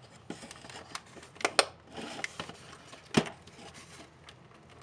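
Hard plastic spotlight housing being handled and turned over, with faint rubbing and a few sharp clicks and knocks: a pair of clicks about a second and a half in, and a louder knock a little after three seconds.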